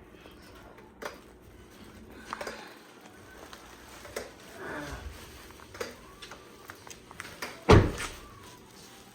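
Scattered small knocks and clicks of objects being handled, with one loud thump about three-quarters of the way through.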